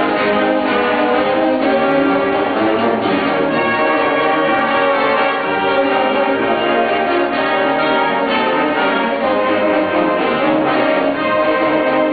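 Concert band playing, brass and woodwinds sounding full held chords that shift every second or so.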